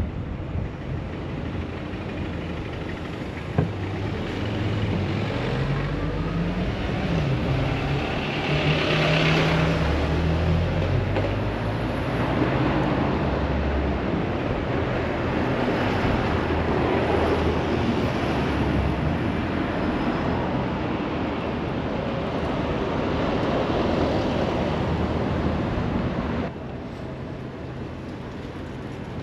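Road traffic passing close by: vehicle engines and tyre noise, with one engine rising in pitch as it pulls away and a louder pass about a third of the way in. The noise drops off sharply near the end.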